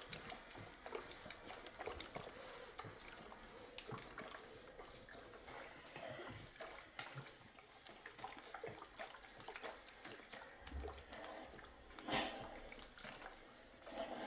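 Scattered light clicks and small knocks over a faint watery sound, like handling things at a sink, with one louder knock about twelve seconds in.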